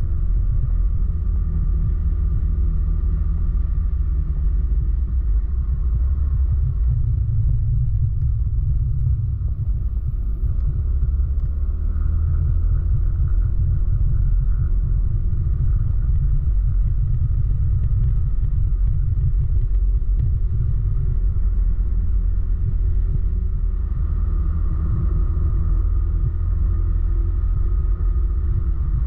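Riding on a motorcycle: a steady low rumble of wind on the onboard microphone mixed with the bike's engine running at cruising speed, the engine note shifting slightly about halfway through and again near the end.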